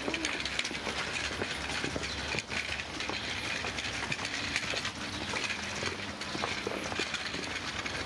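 Steady rumble of passing street traffic, with scattered light clicks.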